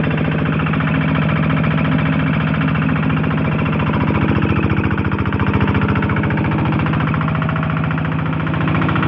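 Kubota NS100 single-cylinder diesel engine driving a 4-inch water pump, running steadily with a fast, even firing pulse.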